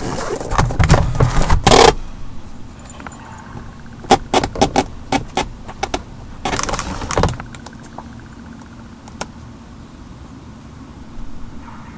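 Clattering and clicking of the BMW E46's door lock latch and its cable being handled, the latch's cable snapped off the part that works it. A dense rattle at the start, a run of sharp clicks about four seconds in, a short rattle near seven seconds and one last click.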